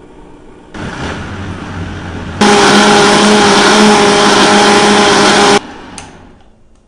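Vitamix blender blending shredded coconut with hot water for coconut milk. Its motor is stepped up in speed about a second in, then switched to full speed a little later with a loud, steady whine, and it cuts off suddenly near the end.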